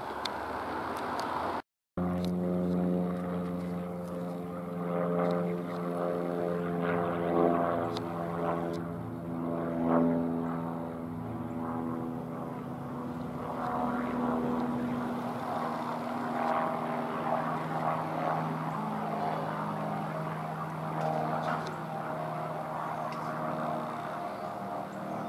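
Aircraft flying overhead: a steady engine drone with a low buzzing tone that drops slightly in pitch about halfway through. The sound cuts out briefly near the start.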